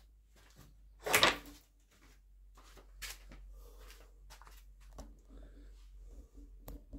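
A steel reamer rod being handled and lined up in the bore of a clamped rifle barrel on a wooden reaming bench. One loud short handling noise comes about a second in, followed by scattered faint clicks and knocks.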